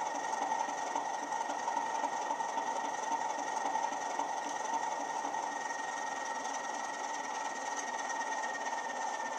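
Model Class 37 diesel locomotive's ESU LokSound hifi sound decoder playing the engine sound through the model's small speaker, the locomotive standing at idle: a steady diesel tick-over with a thin high whistle held over it, dipping slightly in pitch near the end.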